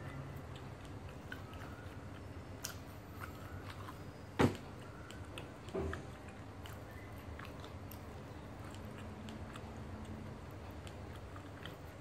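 Roti prata being torn by hand and chewed up close, with small mouth and finger ticks, a sharp click about four and a half seconds in and a lesser one about a second later.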